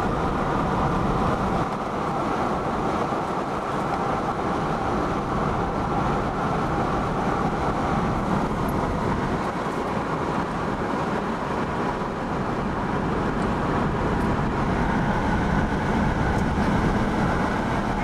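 Steady road and engine noise of a car driving on a highway, heard from inside the cabin.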